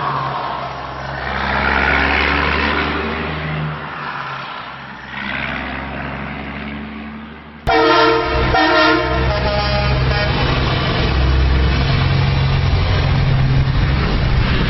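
Sound effects of a road vehicle: an engine running as it drives, then an abrupt cut about halfway through to a horn honking over a steady engine rumble.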